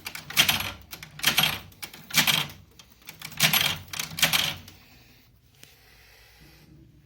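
Clattering of small hard objects being handled, in five bursts of rapid clicks about a second apart, then fading to a faint rustle.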